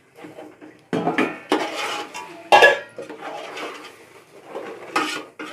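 Several sharp metal clinks and knocks against an aluminium cooking pot, the loudest about two and a half seconds in, with wet rustling between them as pieces of rohu fish are mixed by hand into thick masala.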